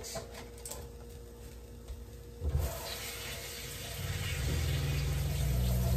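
Kitchen faucet turned on about two and a half seconds in, water running steadily into a stainless-steel sink with a low rumble under the hiss, stopping right at the end.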